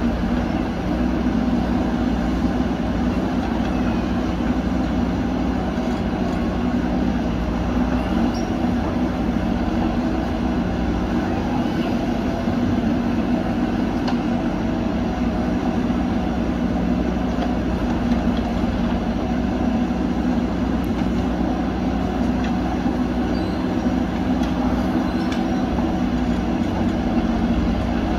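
Diesel engines of backhoe loaders running steadily under load while they dig earth and load it into a dump truck, a constant engine note with no breaks.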